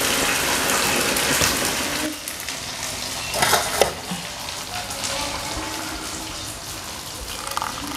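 A steady sizzling hiss from pans on a gas stove, which drops away after about two seconds. About halfway through, a short splash and clatter as hot water is tipped from a small saucepan into a coffee cup.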